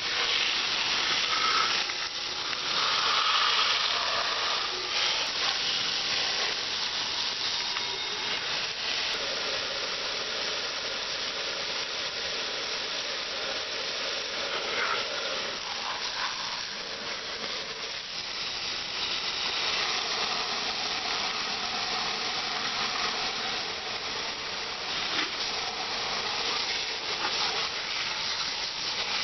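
Steady hiss of a water jet spraying a lawn mower deck, washing out the caked grass. It varies a little in loudness as the spray moves.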